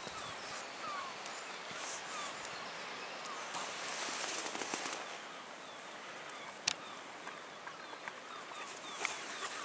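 Quiet outdoor ambience: a steady soft hiss with faint short chirps and rustles, and one sharp click about seven seconds in.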